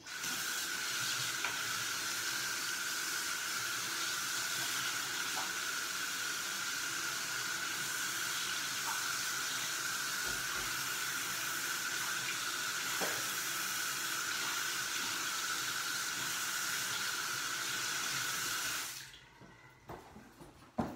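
Water running steadily from a tap into a sink, with a steady high-pitched note in the flow, shut off about 19 seconds in.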